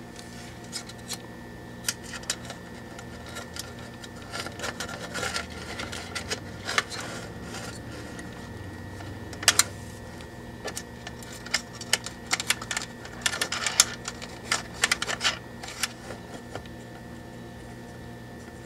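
Irregular clicks and knocks as a transformer is handled and set down on a tube amplifier's sheet-aluminium chassis, in clusters with the sharpest knocks about halfway and again near two-thirds of the way in, over a steady faint hum.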